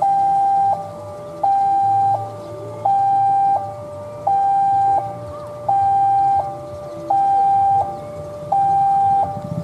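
Railway level-crossing warning alarm sounding a two-tone electronic signal, a higher and a lower tone alternating about every 0.7 seconds, as a train approaches. The higher tone is the louder.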